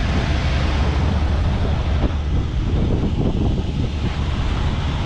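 Steady wind noise buffeting the microphone over a constant low rumble.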